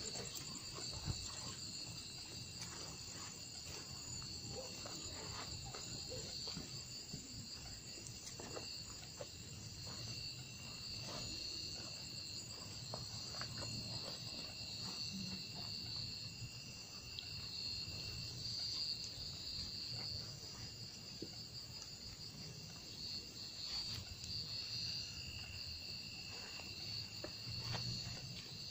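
Night insects, crickets chirring steadily in several high-pitched bands, with faint scuffs and knocks of footsteps underneath.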